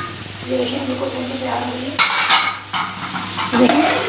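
Metal spoon stirring and scraping through frying chicken masala in an aluminium pot, with knocks of metal on metal and a sizzle of hot oil. Sharp knocks come near the start and about two seconds in.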